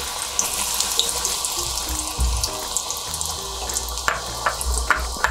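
Batter-coated corn kernels deep-frying in hot oil in a steel kadai: a steady hiss of bubbling oil with scattered sharp pops and crackles.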